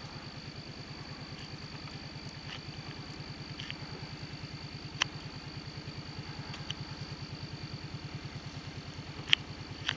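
ATV engine running steadily at a low, even putter. Two sharp clicks cut through it, about halfway through and again near the end.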